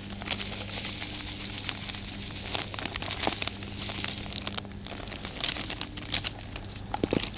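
A plastic groundbait packet being handled and shaken open, crinkling continuously with sharper crackles here and there.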